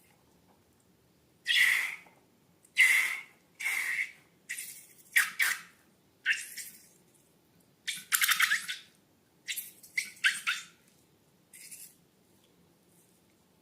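About ten short squishy, squeaky bursts from slime and rubber balloons being squeezed and handled, each under a second, with short pauses between.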